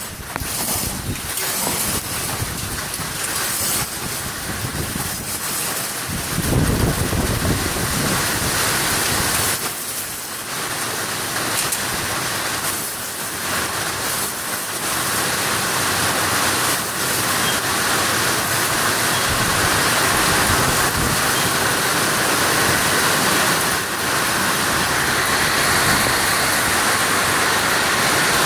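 Hail and heavy rain pelting down on pavement and bins, a dense steady hiss that grows heavier in the second half. A low rumble comes through about a quarter of the way in.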